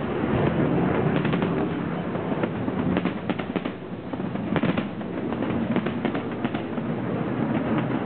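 Finale barrage of aerial firework shells bursting: a continuous rumble of booms with repeated clusters of sharp crackling cracks.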